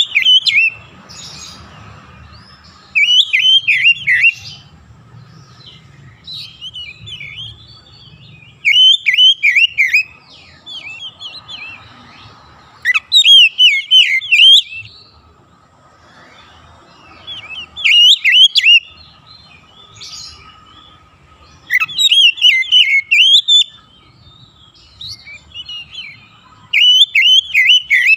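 Oriental magpie-robin singing: loud bursts of fast, rapidly warbled whistles and chattering notes, repeated about every four to five seconds with softer twittering in between.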